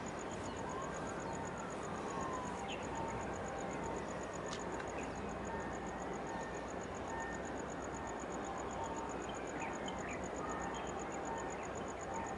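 Outdoor ambience: a steady hiss of wind and water with an insect chirping in a fast, even, high-pitched pulse throughout, and a few short bird chirps.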